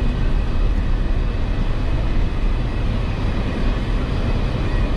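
Jeep Wrangler driving, its engine and drivetrain giving a steady low rumble.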